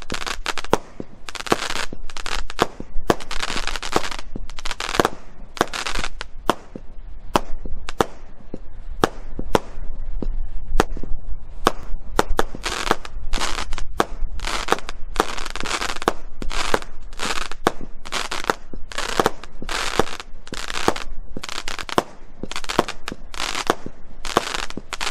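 Consumer fireworks cake (battery) firing a rapid sequence of shots, about two a second, each launch followed by a short rush of noise as the small bursts break overhead.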